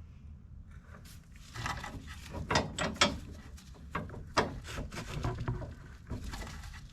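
Irregular metal clicks, knocks and scrapes of rear suspension parts and tools being worked into place under a Fox-body Mustang, starting about a second and a half in.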